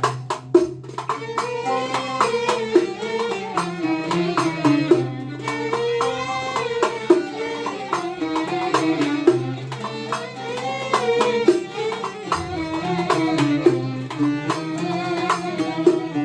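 Background music in a traditional folk style: a wavering melody over a steady low drone, with regular percussion hits.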